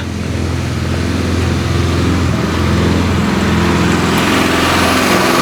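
Engine of a weed-spraying rig running steadily, growing slightly louder.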